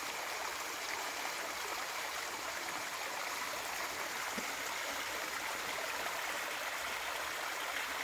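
Stream water flowing, a steady, even rush with no change in level.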